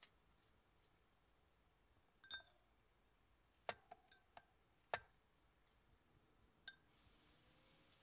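Metal spoon and fork clinking against a ceramic bowl while tossing a salad: about nine scattered, sharp clinks, the loudest near the middle.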